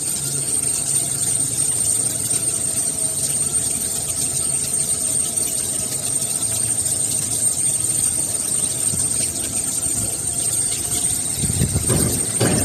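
Steady machine noise with a constant high-pitched whine, becoming louder and uneven near the end.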